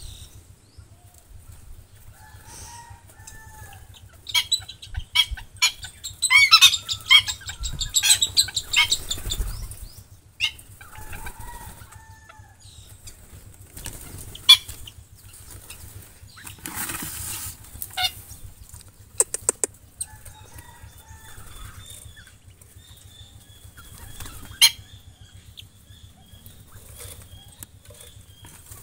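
Aviary birds flapping their wings and calling, with a flurry of squawking calls and wing flutter between about four and ten seconds in. After that come scattered short flutters and clicks, and a faint repeated high call.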